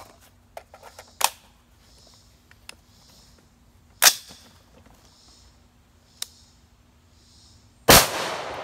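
Metallic clicks of a magazine being seated in a 6.5 Creedmoor AR-10-type rifle, with a sharp clack about four seconds in as the bolt closes on the round, then a single loud rifle shot near the end with a long echoing tail.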